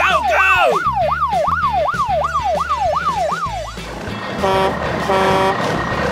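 A fast wailing siren sweeping up and down about three times a second, over background music. It cuts off a little before four seconds in and gives way to a rumbling vehicle noise with two short horn honks.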